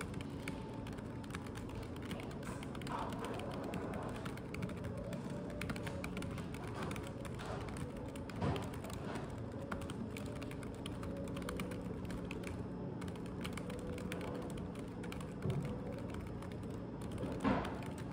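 Typing on a computer keyboard: a continuous patter of key clicks, with a few louder key strikes about halfway through and near the end.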